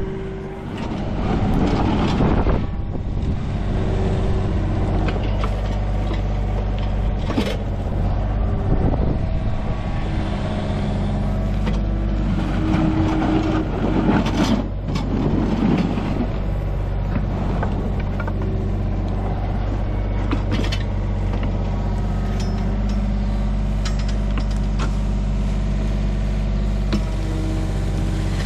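Mini excavator's diesel engine running steadily as its bucket digs into wet soil. There are a couple of louder spells under load and a few knocks from the bucket.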